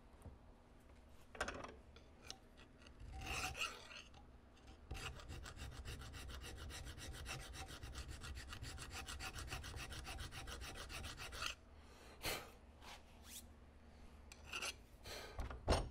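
Hand file rasping across a small metal part: a few separate strokes, then a steady run of quick, even strokes for about six seconds, then a few more single strokes, the sharpest one near the end.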